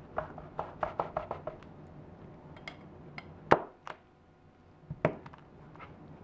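Light clicks and taps of a drone battery pack and a carbon fiber frame plate being handled and set down on a tabletop, a quick run of small clicks at first, then a sharper knock about three and a half seconds in and another about five seconds in.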